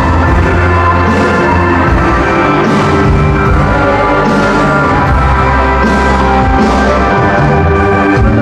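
Live rock band playing loudly through a PA: electric guitars, bass and a drum kit, with cymbal crashes every second or two over a steady bass line.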